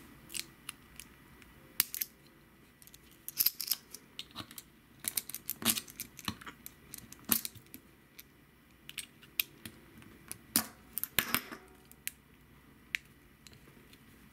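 Tip of a small precision screwdriver clicking and scraping against the crimped-on metal shell of a USB WiFi adapter's plug as it is pried at. The clicks come irregularly in short clusters with pauses between.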